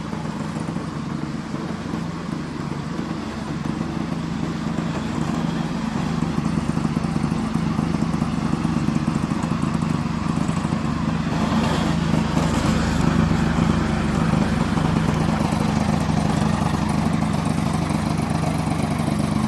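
Engine of a remote-controlled slope lawn mower running steadily under load while mowing, growing slightly louder about six seconds in.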